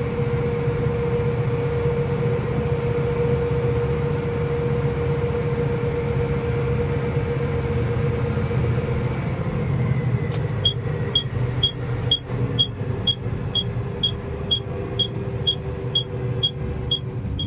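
John Deere 7R 310 tractor running at road speed, heard from inside the cab: a steady engine drone with a whine that drops in pitch about nine seconds in. About ten seconds in, a sharp high tick starts repeating evenly, about twice a second.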